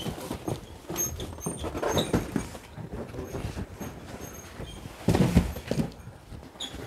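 Cardboard cartons of instant noodles being handled, knocking and thudding as they are passed down from a truck and set down, with a louder thump about five seconds in.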